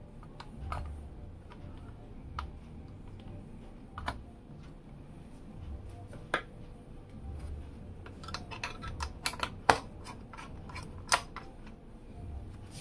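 Scattered light clicks and taps of an AMD stock CPU cooler being handled and set down on a motherboard. A quicker run of sharper clicks comes in the last few seconds.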